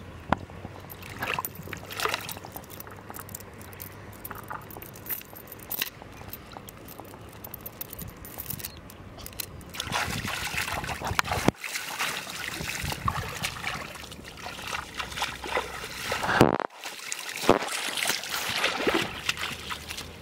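Shallow river water sloshing and splashing as hands and legs work in it at the water's edge, with scattered sharper splashes that grow louder about halfway through.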